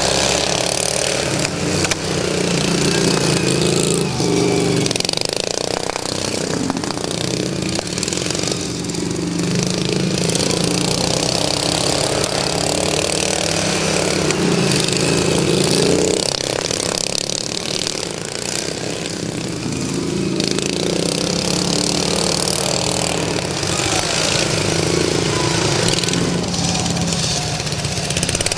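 Several small lawn tractor engines running at once on racing lawn mowers, the engine note swelling and shifting as the machines rev and pass.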